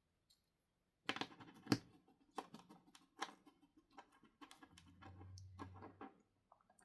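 Faint, irregular clicks and taps of fingers packing toy dirt into a small plastic miniature crate, with one sharper tap early on. A low hum runs briefly past the middle.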